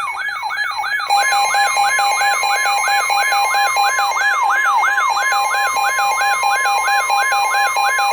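A weather alert radio's siren-style alarm: a falling whoop repeating about three times a second over a steady tone. About a second in, the steady NOAA Weather Radio 1050 Hz warning alarm tone joins it, signalling that a warning is about to be broadcast.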